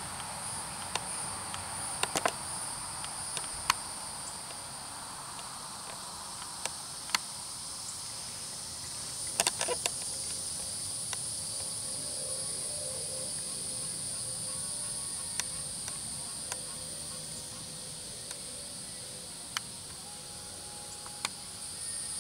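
Steady high-pitched insect trilling, with scattered sharp clicks and a small cluster of them about nine and a half seconds in.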